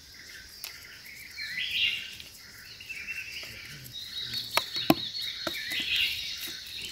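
A steady high insect drone with chirping bird or insect calls, and a handful of sharp clicks about four to five seconds in.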